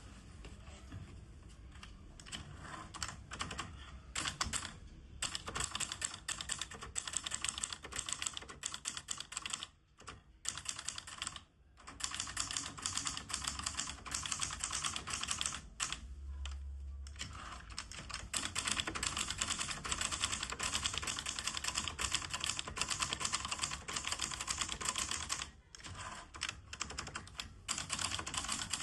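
Late-1950s Hermes Baby manual portable typewriter being typed on: a rapid run of key strikes, broken by a few short pauses.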